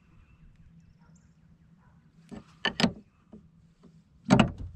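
Small open-end wrench turning a car battery's terminal clamp bolt: a few short metallic clicks and scrapes about two and a half seconds in, and a louder knock near the end, over a faint steady hum.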